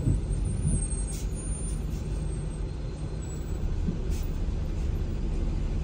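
Steady low rumble of a car moving slowly in stop-and-go traffic, heard from inside the cabin.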